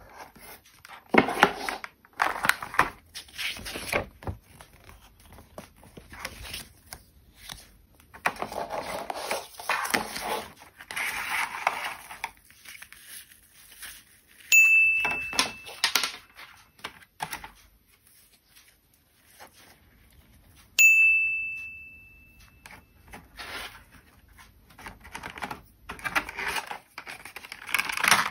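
Cardboard box, paper leaflet and plastic packaging rustling and crinkling in bursts as they are handled. A bright ding sounds twice, about halfway through and again later, ringing out longer the second time.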